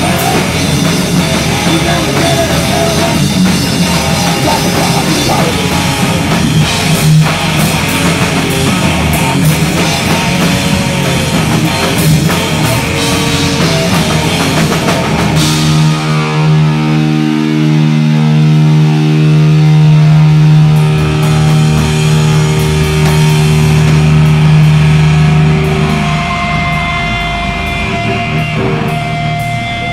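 Live hard rock band playing loud on distorted electric guitar, bass and drum kit. About halfway through, the drums drop out and the amplified strings hold long sustained notes that ring on, joined near the end by a steady high tone.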